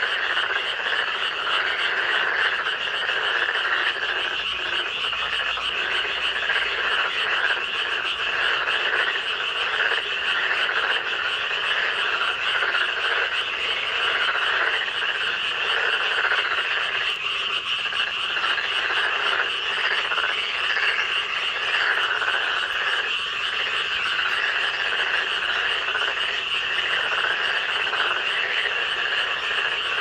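A dense chorus of many frogs croaking at once, an unbroken, overlapping din of rapid calls at a steady level.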